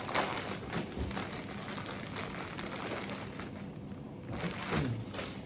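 Rustling and crinkling as a T-shirt and its packaging are handled and unfolded.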